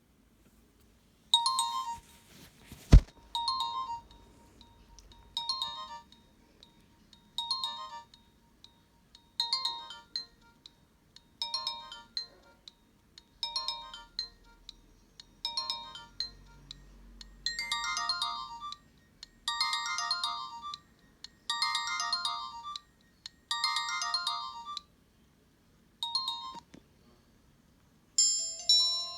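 Nokia 1650 mobile phone playing a built-in ringtone through its small speaker: a short melodic phrase that repeats about every two seconds, gets fuller from about 17 seconds in, and stops after a last short phrase near the end. A sharp click about 3 seconds in.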